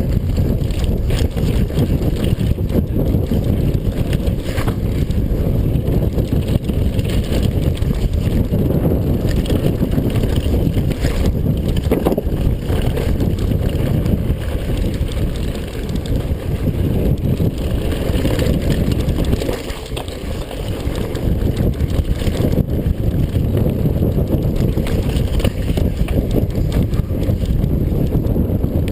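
Mountain bike descending a dirt trail: wind buffets the riding camera's microphone while the tyres roll and the bike rattles over bumps. The noise eases briefly twice.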